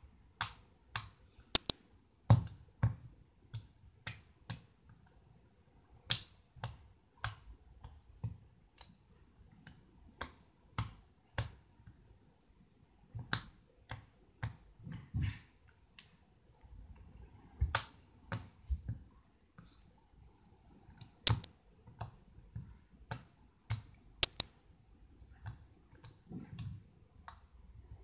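Blue homemade slime being poked, pressed and squeezed by hand, giving sharp, irregular clicking pops as trapped air bursts, about one or two a second.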